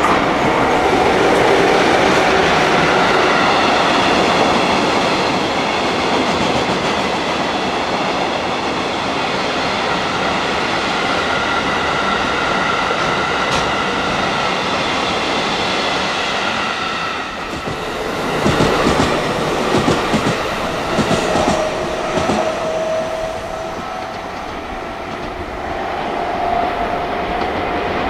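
A freight train rolling past, its wagons' wheels rumbling and clattering over the rail joints with thin steady squealing tones. Partway through the noise drops, then a run of sharper clacks follows, and a single steady squeal sits over the rolling near the end.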